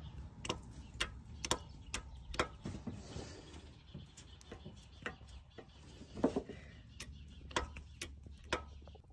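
Light, irregular metallic clicks as a piston is rocked by hand in its bore, the piston knocking against the cylinder wall: the sign of piston slap.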